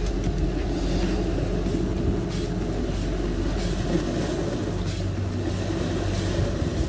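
Engines of a passing tourist catamaran rumbling steadily, over the wash of the sea against the rocks.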